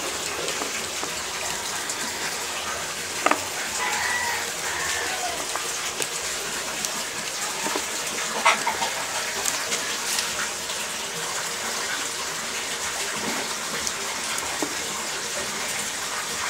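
Cat eating dry kibble from a plastic bowl: a few sharp crunches and clicks, loudest about three and eight seconds in, over a steady rushing hiss. A short faint call sounds about four seconds in.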